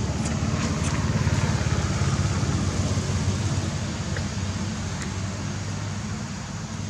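A motor vehicle's engine running steadily with a low hum, easing off a little in the second half.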